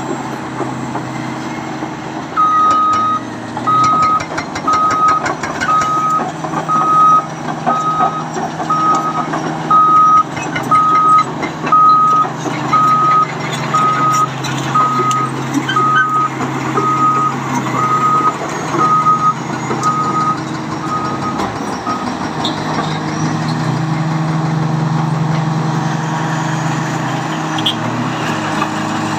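Caterpillar D9 GC bulldozer's diesel engine running while its reverse alarm beeps about once a second, a sign that the machine is backing up, with its steel tracks clanking. About two-thirds of the way through the beeping stops and the engine note strengthens.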